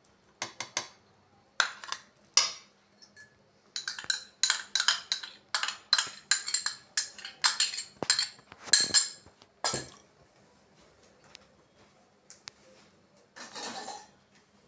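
Metal spatula clinking and scraping against a metal kadai as curd is mixed into mashed rice. A few single knocks come first, then a busy run of strokes about two a second that stops about ten seconds in, with one short scrape near the end.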